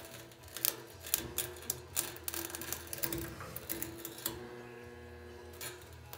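Handheld Princess Auto resistance spot welder tacking the quarter panel flange to the unibody: a run of sharp clicks and snaps as the tongs bite the sheet metal, then a steady buzz for about two seconds in the middle while the weld fuses.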